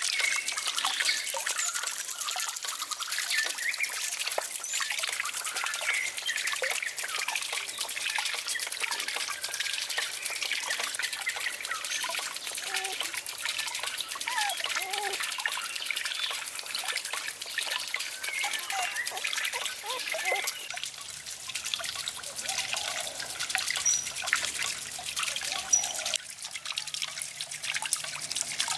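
Water trickling steadily from a bamboo spout onto a small water wheel and into a pool, with short high chirps scattered over it.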